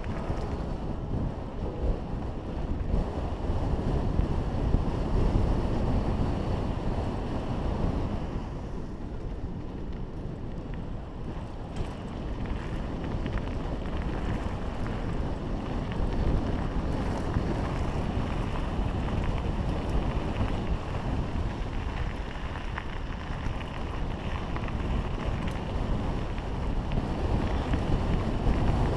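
Wind buffeting an action camera's microphone, over the rumble of mountain bike tyres rolling down a gravel track. It eases a little about ten seconds in.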